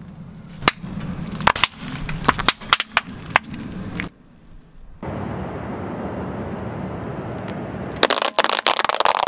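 Car tyre rolling over a row of laundry detergent pods, which burst with a string of sharp pops and cracks. After a pause and a few seconds of steady noise, the tyre starts crushing a pile of paintballs about eight seconds in, a dense rapid run of cracks.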